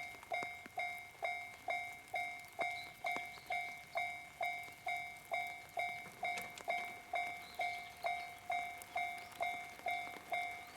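Japanese railway level crossing warning bell ringing, a clanging two-pitch tone struck about twice a second, each strike dying away before the next: the crossing is active, warning of an approaching train.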